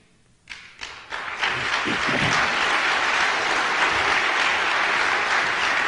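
Audience applauding: a few scattered claps about half a second in, building within a second or two into steady applause.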